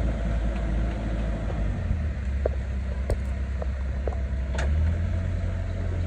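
Diesel excavator engine running steadily, its pitch shifting about two seconds in and again near the end as the hydraulics are worked. A few light knocks come through in the middle.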